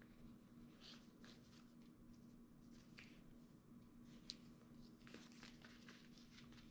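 Near silence, with faint rustling of jute twine and wrapping paper being handled as the twine is tied around a gift, and one small click about four seconds in, over a faint steady hum.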